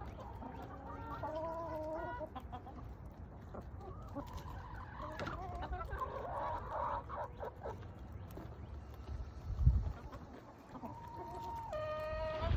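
Sex-link chickens clucking and calling, with a few drawn-out calls near the end. A single dull thump about ten seconds in.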